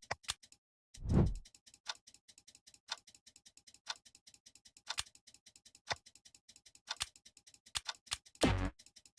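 Ticking timer sound effect: fast, even ticks several times a second with a stronger tick about once a second, broken by two louder deep hits about a second in and near the end.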